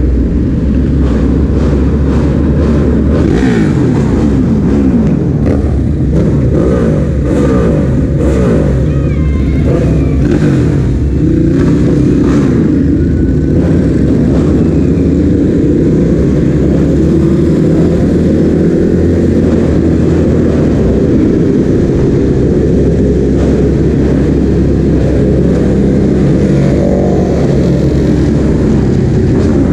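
Ducati Hypermotard's L-twin engine under way, revving up and falling back again and again through the gears.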